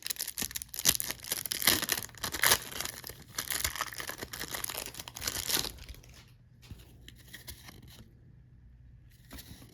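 Wrapper of a trading-card pack being torn open and crinkled, a dense run of crackling and tearing for about six seconds, then only a few faint rustles.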